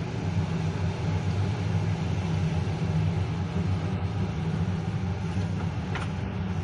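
Passenger train running along the rails, heard from aboard: a steady low rumble of wheels on track, with a single sharp click about six seconds in.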